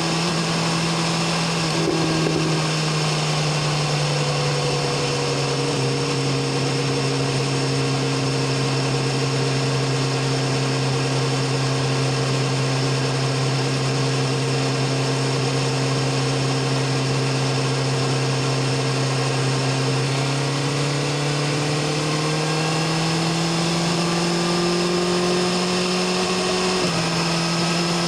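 BMW S1000RR's inline-four engine and exhaust at a steady cruise. The pitch dips about two seconds in, holds level, then climbs gradually over the last third and steps sharply down near the end, as with a gear change. A steady rush of wind and road noise runs under it.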